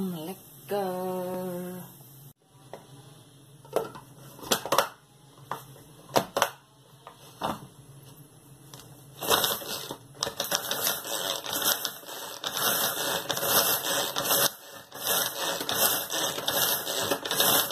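Tefal pull-cord manual food chopper being worked: repeated pulls of the cord spin the blades with a fast clattering rattle, in two long runs from about nine seconds in with a short break between them. A few sharp clicks come before the runs.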